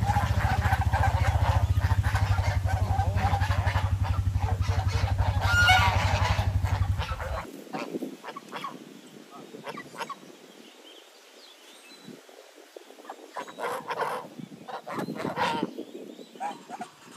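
A flock of domestic geese honking, a steady low tractor engine running under the calls for the first seven seconds or so. The engine sound then drops out abruptly, and scattered, quieter honks carry on.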